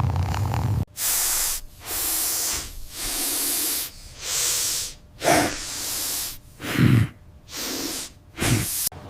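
Repeated loud hissing: about seven long hisses in a row, each close to a second long, with a few short low snorts between them.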